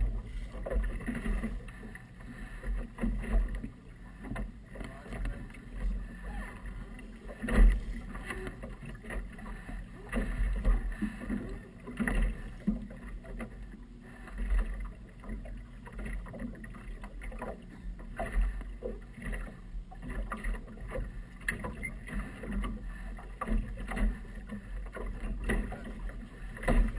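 Water slapping against the hull of a small outboard motorboat rocking in light chop, with a low, uneven rumble and a few sharp knocks from the hull.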